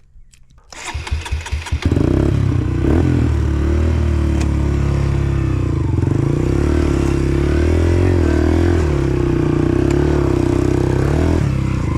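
A dirt bike engine is turned over by its starter in quick uneven pulses for about a second, catches about two seconds in, and then runs steadily at low revs with small wavers in pitch.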